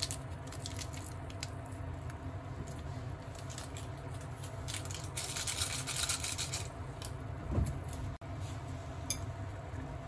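A gas stove burner gives a steady low rumble under a simmering pot. Over it come light crinkles and clicks as a small plastic packet is handled, and a louder burst of rustling about five seconds in.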